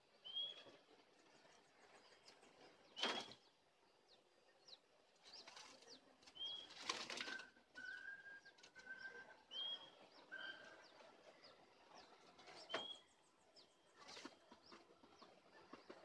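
Doves flapping their wings in a wire-mesh aviary: three short bursts of wingbeats, about 3 s in, about 7 s in and near 13 s. Short high chirps recur between them, and a run of four short, even whistled notes sounds in the middle.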